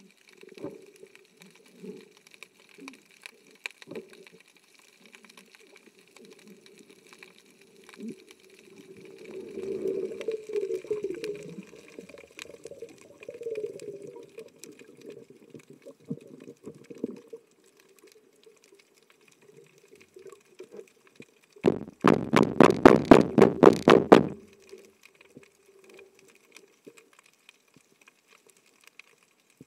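Underwater: a loud, rapid rattle of about eight pulses a second, lasting roughly two and a half seconds past the middle. It is a spearfisher's call (richiamo), made to draw fish in. Before it there is softer water noise.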